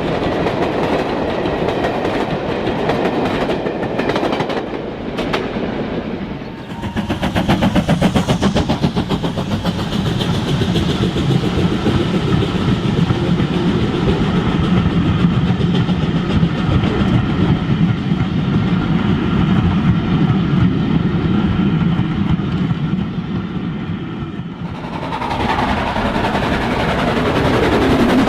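OO gauge model train running on the layout's track: a steady whirring with a rapid even clicking of wheels over rail joints. A train runs nearer and louder from about a quarter of the way in, then fades near the end.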